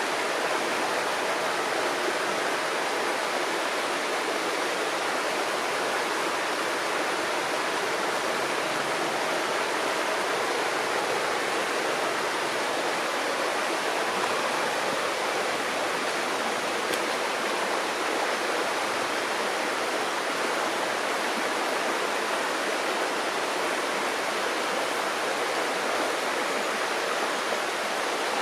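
River water rushing steadily: an even, unbroken wash of flowing water.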